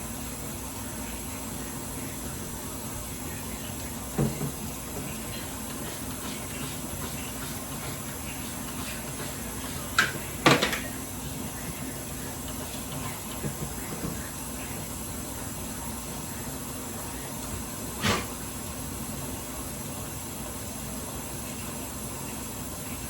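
Kitchen clatter: a handful of short knocks and bangs from household items being handled, the loudest a close pair about ten seconds in, over a steady background hum.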